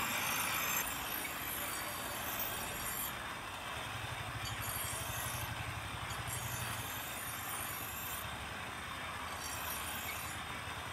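Steel knife blade ground against a pedal-driven grinding stone: a steady gritty hiss. Road traffic runs underneath, and a vehicle engine rises for a few seconds in the middle.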